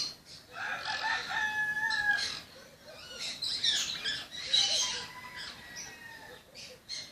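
Birds calling: two long calls that hold a steady pitch, one about a second in and another about five seconds in, among shorter high calls.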